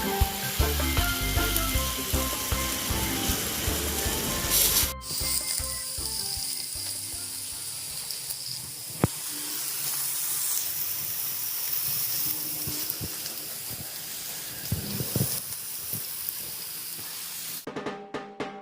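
Food sizzling on an electric grill plate, a steady hiss with one sharp tick about nine seconds in. Background music with a beat plays over it for the first five seconds and comes back near the end.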